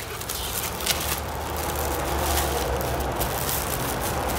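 Rustling and handling of an object close to the microphone, with a few light clicks, over a steady low rumble.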